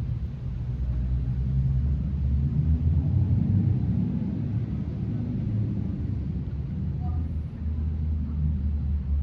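Wind buffeting the microphone outdoors: a low rumble that rises and falls unevenly.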